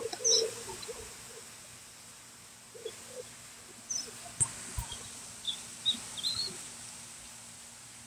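Birds calling in short, scattered chirps over a steady faint hiss. A few lower calls come near the start and about three seconds in, then a run of high chirps from about four to six and a half seconds.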